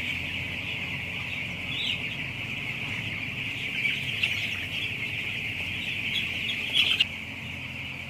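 A large flock of broiler chicks, about ten days old, peeping all at once in a dense, unbroken chorus of overlapping high chirps, over a low steady hum.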